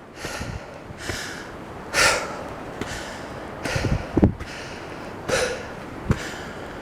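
A person breathing hard while walking uphill, about five loud, airy breaths in and out, with a few soft footfalls between them.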